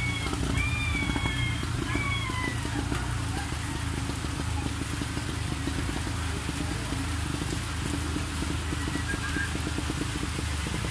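Steady rain and fast-flowing floodwater making a continuous hiss with a low rumble. A few short, high-pitched calls sound over it in the first three seconds, and once more faintly later on.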